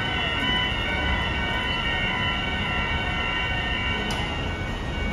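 Fire station turnout alarm bell ringing continuously, a steady metallic ring over a dense low rumble of engines and street traffic.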